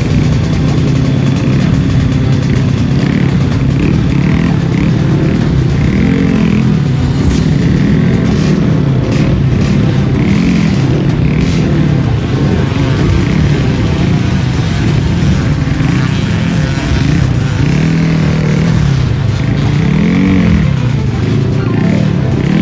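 Trail motorcycle engine being ridden, its revs rising and falling again and again every second or two.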